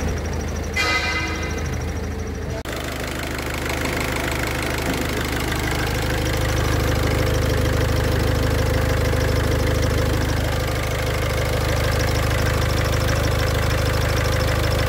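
Car engine idling with a cricket-like chirping from the clutch release bearing, whose balls are starting to wear. A brief high-pitched tone sounds about a second in.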